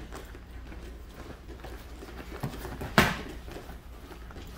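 Kickboxing sparring in gloves and shin guards: light footwork on the gym mat, with one sharp blow landing about three seconds in and a fainter knock just before it.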